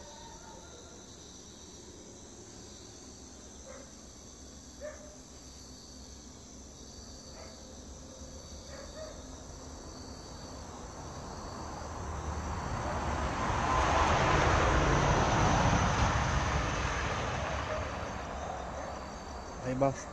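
Crickets chirping steadily. About ten seconds in, a broad rushing noise swells over a few seconds, holds as the loudest sound, then fades away.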